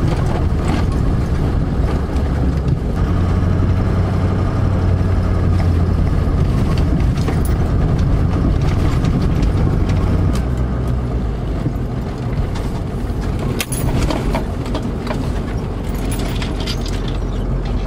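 Vehicle driving, its engine running steadily with scattered knocks and rattles; the low engine note eases a little about ten seconds in.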